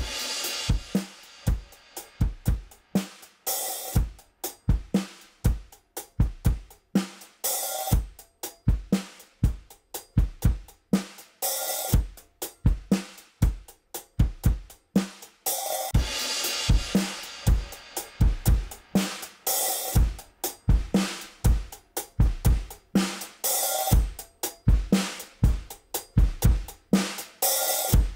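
Recorded drum kit playing a steady groove: kick, snare and hi-hat, with a cymbal crash about every four seconds.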